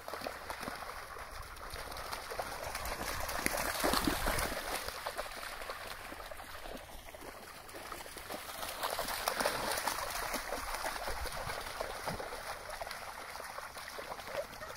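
Dogs running and splashing through shallow seawater, a busy patter of splashes that swells twice, about four seconds in and again around nine to ten seconds.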